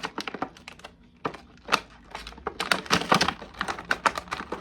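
Action-figure packaging being forced open by hand: a run of sharp crackling clicks and knocks from stiff plastic and card, sparse at first and coming thick and fast from about halfway.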